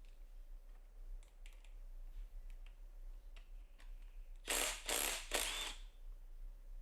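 Ratchet spanner clicking as the seat clamp hardware is undone: scattered light clicks of tools and metal parts, then a louder run of ratcheting for about a second, about four and a half seconds in.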